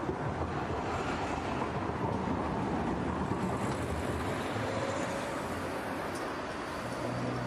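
Steady road noise of a moving car: engine, tyres on asphalt and wind.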